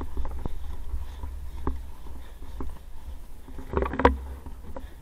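Inline skate wheels rolling on pavement: a steady low rumble with scattered clicks, and a brief louder clatter about four seconds in.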